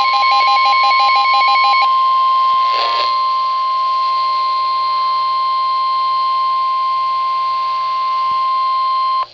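NOAA Weather Radio 1050 Hz warning alarm tone, the alert that comes before a warning broadcast. It is one loud, steady tone that cuts off suddenly after about nine seconds. For the first two seconds a rapid pulsing beep at two other pitches sounds over it, and a short burst of noise comes about three seconds in.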